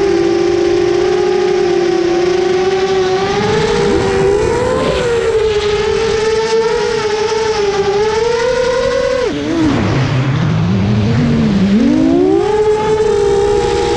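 Motors of a 260-size FPV racing quadcopter whining at a steady high pitch. About nine seconds in, the pitch drops sharply as the motors slow, then climbs back to a steady whine a few seconds later.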